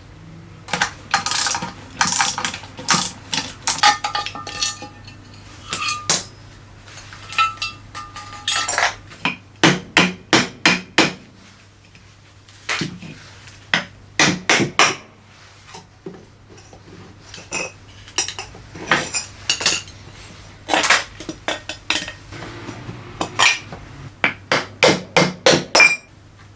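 Sharp metal-on-metal knocks and clinks from tools working on the metal parts of a rusty bench grinder. They come in quick runs of several strikes with short pauses between, the fastest run near the end.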